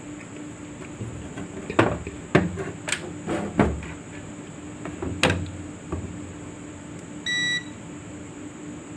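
Several short clicks and knocks from handling small parts and tools, then one short electronic beep near the end, over a steady low hum.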